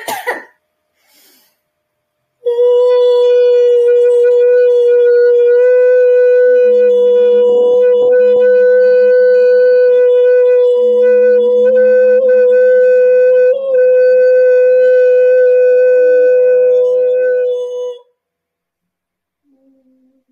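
A woman sings a long "oo" vowel in an operatic voice, holding one steady high note for about fifteen seconds on a single breath before it cuts off. A second, lower voice holds its own note alongside for much of that time. It is a vowel-breathing exercise of laughter yoga.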